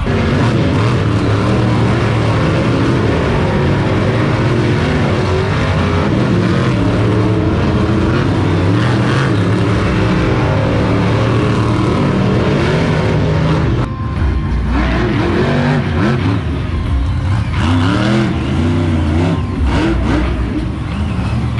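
Monster truck engines, supercharged big-block V8s, running loud and revving up and down in repeated surges, with a sudden brief break about two-thirds of the way through.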